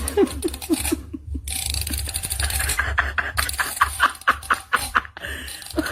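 A person laughing in short repeated bursts, low at first and then higher and quicker, about four a second, over a steady low hum.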